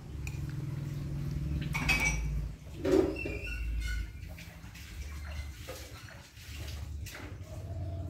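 Metal spoon scraping and clinking against a ceramic plate of rice during a meal, with a couple of sharper knocks about two and three seconds in, over a low steady hum.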